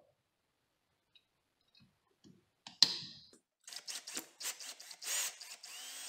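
Ryobi cordless drill/driver running in short bursts, driving a screw into a wall switch's mounting strap, starting about four seconds in. A single sharp click comes just before it.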